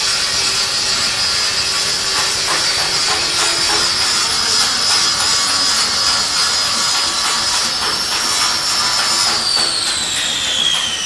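Handheld power grinder running steadily against the tyre, with a high whine that falls in pitch over the last couple of seconds as the tool slows down.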